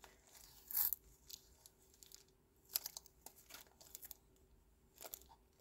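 Faint crackling and rustling of a label being peeled from a plastic Stampin' Up ink pad case and the case being handled, in short scattered bursts about a second in, around the middle and near the end.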